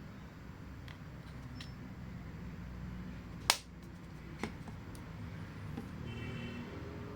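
A sharp click about three and a half seconds in, then a softer click a second later, over low, steady handling noise.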